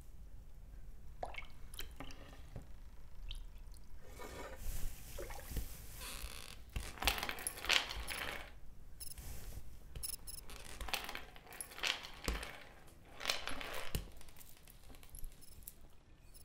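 Water splashing and sloshing in irregular bursts, with wet squishing, loudest near the middle.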